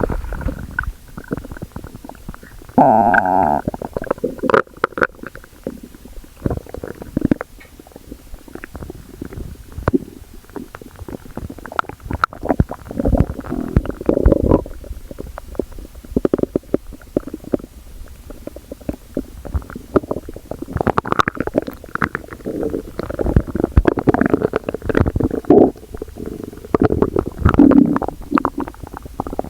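Human stomach growling and gurgling in irregular bubbly rumbles and squelches. About three seconds in comes a louder, pitched rumble lasting about a second.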